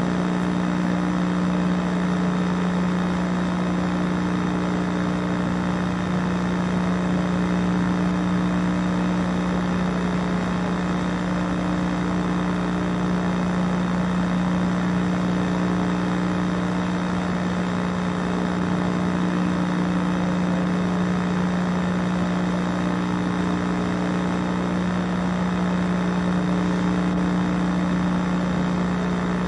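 A steady, unchanging hum with a low, even drone and a fainter tone above it, the kind of noise a machine or electrical system makes in a room.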